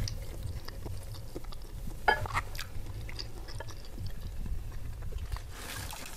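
Close-miked chewing of a mouthful of lontong sayur, soft rice cake and vegetables in broth, with small wet clicks throughout. About two seconds in, the metal spoon and fork clink against the glass bowl.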